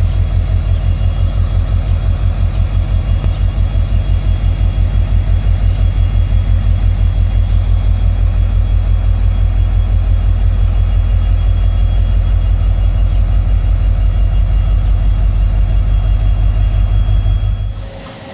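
ALCO diesel locomotive engine running loud and close: a deep, even chugging of several beats a second, with a thin high turbocharger whistle over it. It cuts off abruptly near the end, giving way to quieter train sound.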